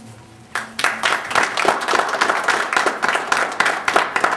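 A small group of people clapping, starting about half a second in and dying away near the end.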